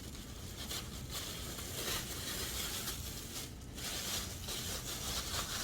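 Faint rustling and scraping from things being handled, over a steady hiss.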